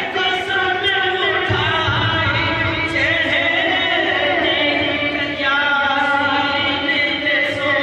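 Men's voices singing an Urdu naat in a sustained, chant-like style, several voices together.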